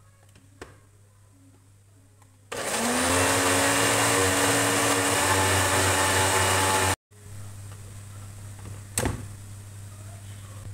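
Countertop electric blender switching on about two and a half seconds in, its motor rising in pitch and then running steadily as it purées chunks of fruit. It cuts off abruptly after about four and a half seconds. A single sharp knock follows a couple of seconds later over a low steady hum.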